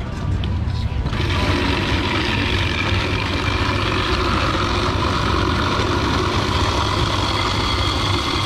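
Electric ice-shaving machine grinding ice: a steady motor-and-grinding noise that starts about a second in, over a constant low hum.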